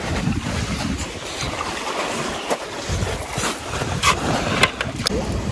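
Wind buffeting the microphone over lake waves washing on the shore, an uneven low rumble, with a few short clicks near the middle and end.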